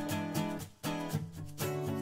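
Outro music: strummed guitar chords.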